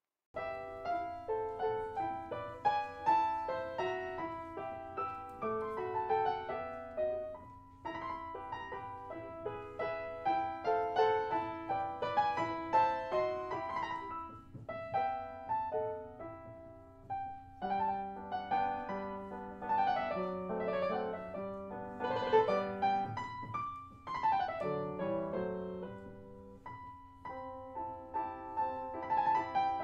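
Background piano music: a steady flow of quick, fading notes.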